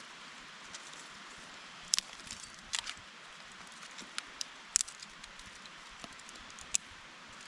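Sharp, irregular crackles and snaps over a steady hiss, about half a dozen in all, from a campfire being lit: cotton-ball tinder and damp kindling being coaxed alight.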